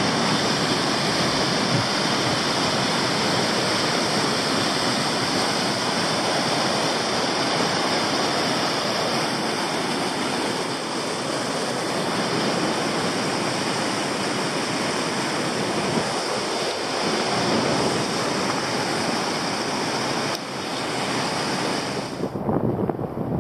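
Steady rushing roar of Yosemite Falls, a large waterfall, heard from across the valley. Near the end the roar thins and turns uneven.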